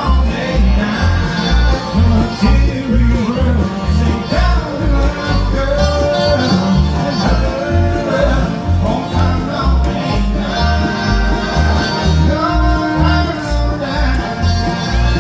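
Bluegrass band playing live: banjo and guitar over a steady, bouncing bass line.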